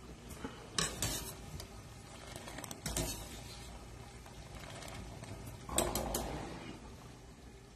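A wire spider strainer stirring in a stainless pot of boiling water, knocking and scraping against the pot a few times, with the loudest clatter about six seconds in.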